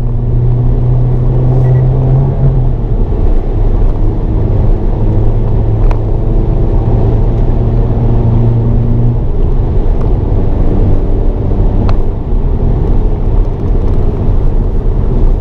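Hyundai Avante N (Elantra N) 2.0-litre turbocharged four-cylinder engine pulling hard, heard from inside the cabin. The engine note holds steady for a couple of seconds, breaks off, returns for about five seconds, then gives way to a rumble of road and tyre noise.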